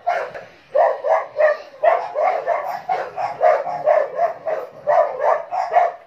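A dog barking continuously in rapid, short barks, about three a second.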